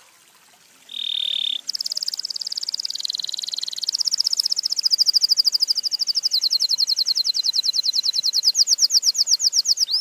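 Domestic canary (Belgian canary) singing: a short held whistle about a second in, then a long, very rapid trill of repeated high notes that runs on for several seconds.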